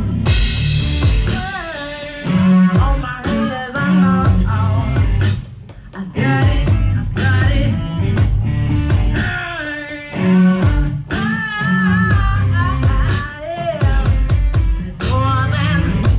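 A live band playing a song, with a lead singer over guitar, bass and drums.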